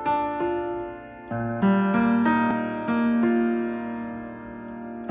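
Background music on a piano-like keyboard: notes struck one after another and left to ring over held chords.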